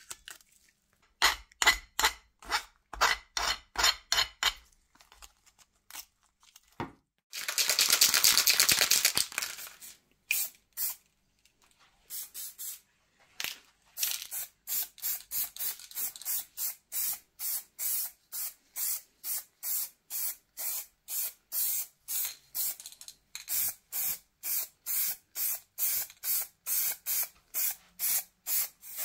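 Aerosol spray can spraying red paint onto cast-iron grinder parts: one longer hiss, then short even bursts, about two a second. Near the start there is a quick run of sharper strokes.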